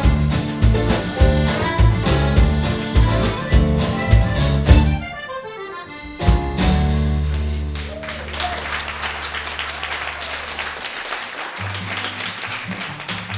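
Live rock band playing an instrumental ending with drums and bass, closing on a quick descending run and a held final chord about halfway through. Audience applause follows, and a new bass line comes in near the end.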